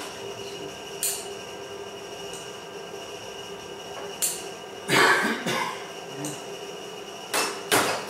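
Brief rustles and scrapes of a cloth-wrapped roll being pressed and handled on a cutting board, the loudest a little past halfway. Under them runs a steady mechanical hum with a faint whine.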